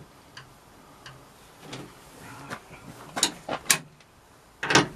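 Ratchet spanner clicking in short irregular runs as bolts through a spare wheel carrier bracket on a van's rear door are tightened, with a louder clack near the end.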